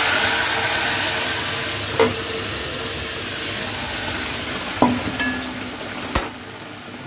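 Hot mustard-oil tempering in a wok hissing and sizzling loudly as boiled jute leaves and their cooking water are poured in, the sizzle slowly dying down. Three short metal clinks of utensils against the wok.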